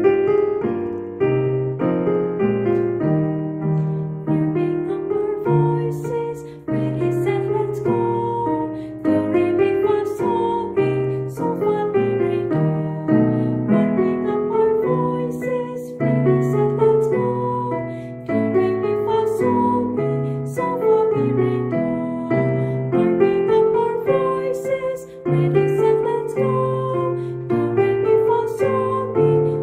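Piano playing the accompaniment to a do-re-mi vocal warm-up: a short pattern of notes and chords played over and over, each time a step higher up the scale.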